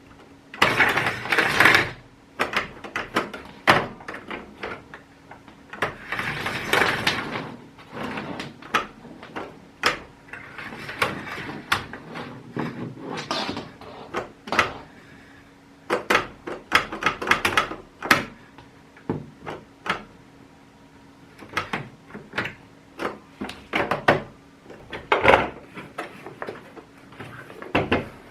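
Hard plastic vacuum-cleaner parts and their packaging being handled: an irregular run of clicks, knocks and scraping, with a few longer rustling stretches. The cleaner's motor is not running.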